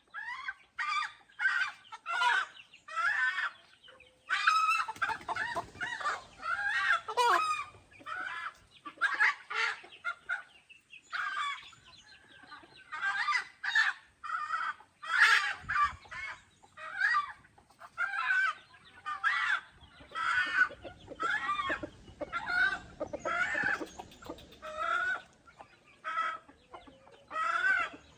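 Domestic chickens clucking: a steady run of short calls, one or two a second, with no pause.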